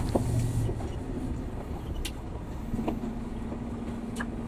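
Scania P360 truck driving, its engine and drivetrain giving a steady low rumble with scattered light clicks and rattles. A steady hum comes in about two and a half seconds in.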